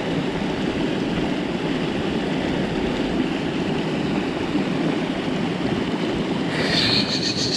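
River water flowing steadily, a continuous rushing noise. Near the end a brief high, rapidly pulsing sound comes in over it.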